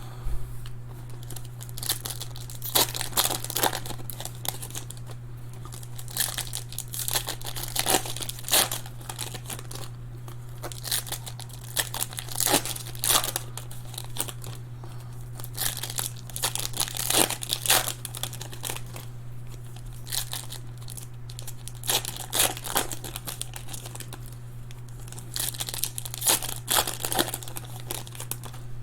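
Plastic wrapping on trading-card packaging being torn and crinkled by hand in irregular crackling bursts, over a steady low electrical hum.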